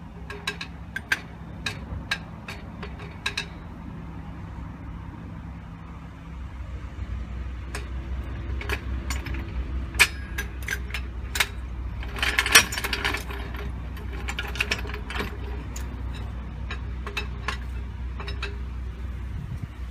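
Irregular metallic clicks and knocks of hand tools working on the steering joint of a van's front suspension, over a low steady hum that deepens and grows a little louder about six seconds in.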